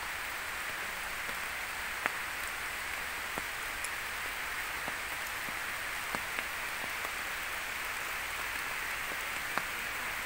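Steady rain falling on foliage and stone, with occasional sharper ticks of single drops striking.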